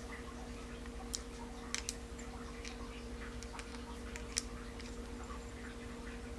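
Scattered light clicks and ticks of small spinning-reel parts and tools being handled during reassembly, a few sharper ones among them, over a steady hum.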